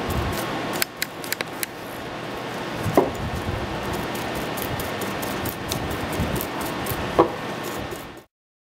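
A brush scrubbing debris out of the insert pocket of a surfacing cutter, then the cutter and its insert handled: a steady scrubbing noise with a few sharp metal clicks and two ringing clinks. The sound cuts off abruptly near the end.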